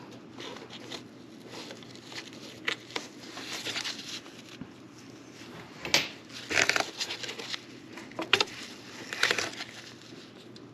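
Hands working on plastic engine parts: irregular clicks, rustling and crinkling, with a few sharper snaps and knocks in the second half, over a low steady hum.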